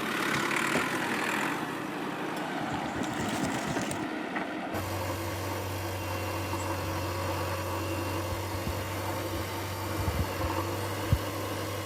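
A motor vehicle engine running steadily, with a low drone that comes in about four and a half seconds in. A couple of faint knocks come near the end.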